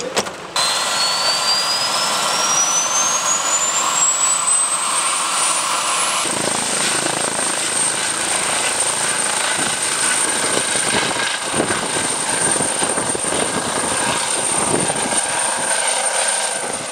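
Eurocopter EC135 trauma helicopter's turbine engine starting up: a high whine rises steadily in pitch for about five seconds, then holds at a steady high pitch as the engine runs.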